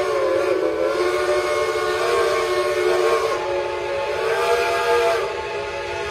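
Whistles of several steam locomotives blowing at once, a loud chord of overlapping steady tones that waver slightly in pitch. About five seconds in, some whistles drop out and the chord changes.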